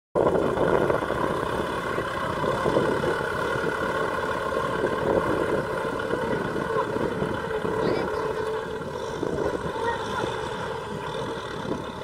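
Farm tractor engine running steadily under load while pulling a disc plough through dry soil.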